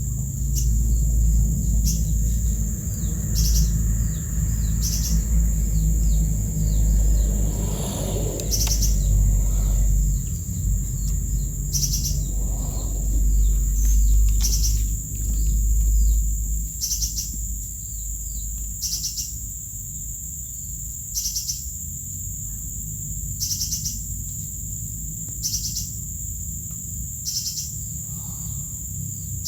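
Outdoor insect and bird chorus: a steady high insect drone, a high pulsing call that repeats about every two seconds, and scattered bird chirps. A low rumble runs under it for about the first half and then fades.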